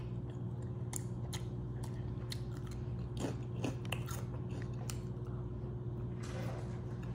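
Close-up eating sounds: scattered wet mouth clicks and chewing, then a bite into a soft pickled egg dyed red in spicy pickle brine near the end. A steady low hum runs underneath.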